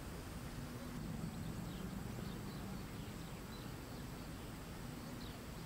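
Quiet outdoor ambience: a low steady background with a few faint, short bird chirps now and then.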